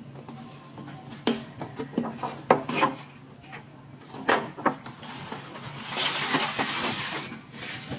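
Hands handling a cardboard toy box with a clear plastic window: scattered taps and knocks as it is gripped and turned, then about a second and a half of rubbing, scraping noise some six seconds in as the box is lifted and tilted. A faint steady low hum runs underneath.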